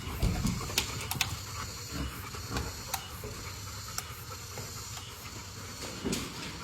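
Dogs moving about quietly, with scattered sharp clicks and taps over a steady hiss.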